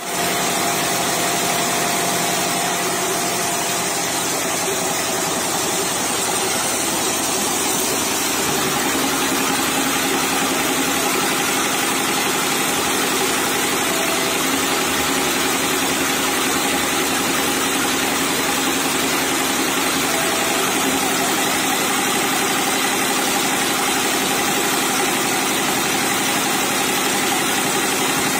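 Richpeace multi-head computerized quilting machine running steadily, its row of needle heads stitching through a layered quilt.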